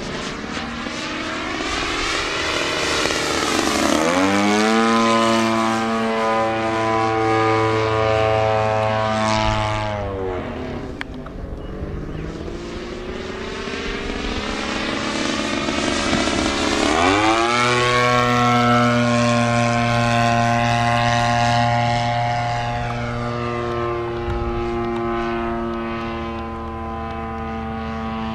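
Engine and propeller of a radio-controlled model airplane making two low passes. Each time it goes by, about four seconds in and again about seventeen seconds in, the pitch drops sharply and then holds steady as the plane flies away.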